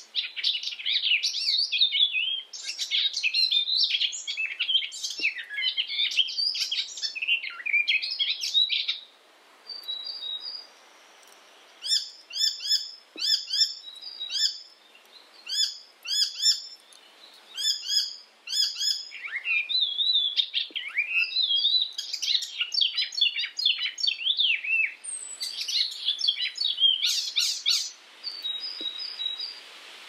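Icterine warbler singing: a fast, varied, chattering song of high notes. In the middle it breaks into a run of short phrases repeated about twice a second, then returns to the rapid jumble.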